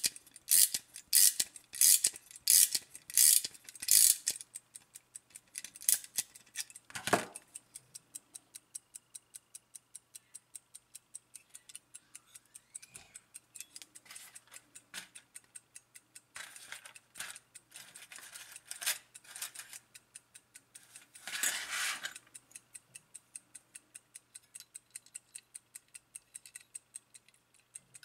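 Soviet marine wall-clock movement being wound with a key: about seven loud ratcheting clicks in the first four seconds, then its platform escapement ticking rapidly and evenly, with occasional handling clatter about 7 and 21 seconds in.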